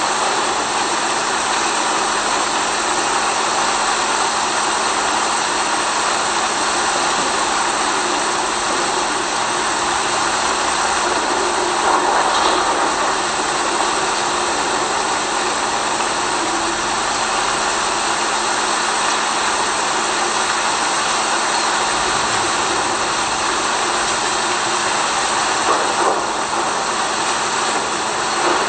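Rain making a steady, even hiss, with a faint constant hum beneath it.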